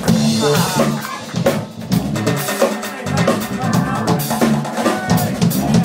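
Live band playing, with drum kit strokes standing out over electric guitar and bass guitar.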